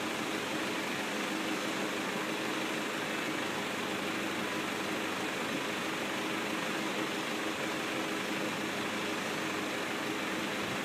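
John Deere farm tractor's engine idling steadily, an even hum that does not change.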